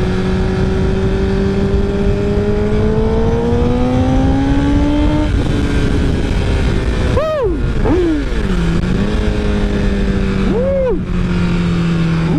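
Honda CBR1000RR inline-four engine running on the road under a steady rush of noise. Its pitch climbs as it accelerates about four seconds in and drops suddenly at a gear change. A few short swoops in pitch rise and fall later.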